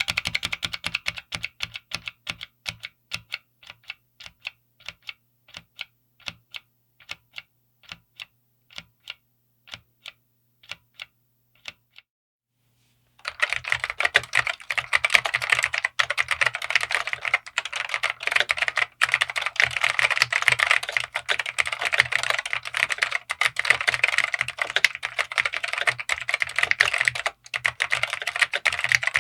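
Dell AT101W keyboard with Alps SKCM Black tactile switches being typed on: single keystrokes one at a time, about two to three a second, for roughly twelve seconds, then a short pause and fast continuous typing.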